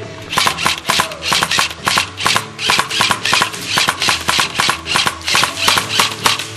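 A rapid, irregular run of sharp clacks and snaps, several a second, from airsoft guns firing and BBs striking the barricades. Faint background music runs underneath.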